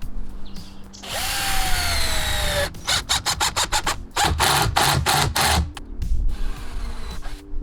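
Power drill driving into wood. It runs for about a second and a half with its pitch sagging as it bogs down under load, then follows with a quick run of short trigger bursts.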